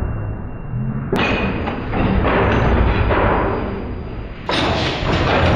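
The 1903 De La Vergne 125 hp single-cylinder, four-cycle open-crankcase oil engine running at its slow speed, with its valve gear working.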